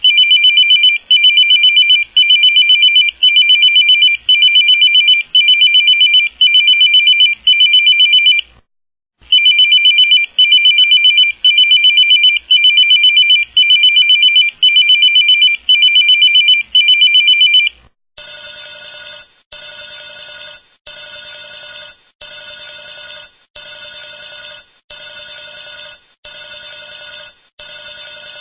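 Telephone ring sound effects. First comes a warbling electronic ring in short bursts about once a second, with one brief break. Just past the middle a different, brighter trilling ring takes over, its bursts about a second and a half apart.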